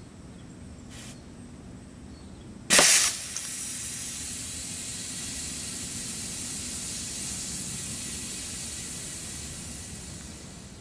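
Homemade pneumatic arrow gun firing at about 480 psi: a sharp blast about three seconds in, then a long steady hiss of air that fades near the end. The hiss is the rest of the SodaStream bottle's air escaping out the barrel, because the quick exhaust valve's diaphragm cocked after firing and failed to reseal.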